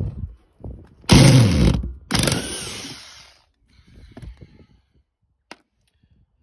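Cordless impact wrench hammering in two bursts of about a second each, undoing the seat mounting bolts. A few light clinks of metal follow.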